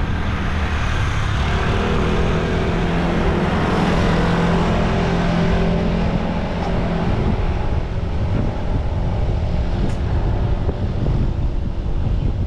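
Wind rumbling on the microphone of a bike-mounted action camera while riding, with a motor vehicle's engine hum building about a second and a half in and fading by about seven seconds in as it passes.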